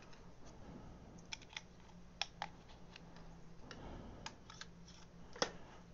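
Scattered plastic clicks and knocks from a Ryobi 18V lithium battery pack's cell assembly and housing being handled and fitted back together, with the sharpest click near the end.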